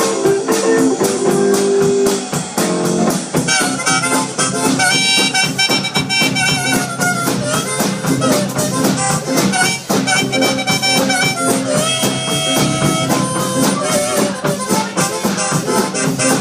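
Live blues band playing an instrumental break: upright bass and drum kit keep a steady groove under a lead melody line of long held notes.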